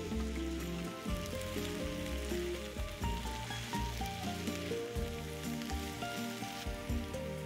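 Food sizzling as it fries in a pan, a steady hiss, under instrumental background music with a repeating bass and a melody that moves from note to note.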